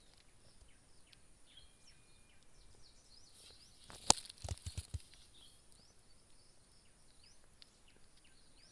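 Small birds chirping repeatedly, short falling calls, over a steady high insect drone. About four seconds in comes one sharp click, the loudest sound, followed by three or four quicker knocks within the next second.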